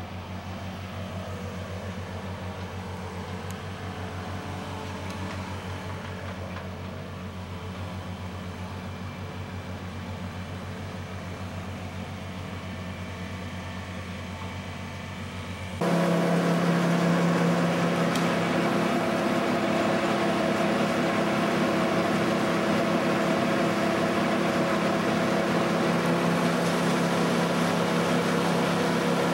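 Engine of tree-removal machinery running steadily at a low pitch. About halfway through it gives way suddenly to a louder, higher-pitched engine sound that then holds steady.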